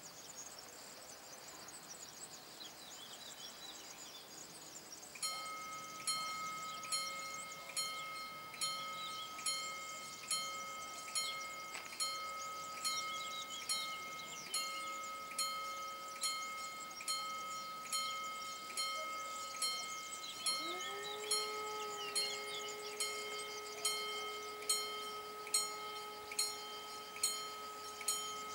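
Level-crossing warning bell starting about five seconds in, ringing at an even pace a little faster than one stroke a second. About twenty seconds in, a steady hum rises and holds as the barrier arms begin to lower.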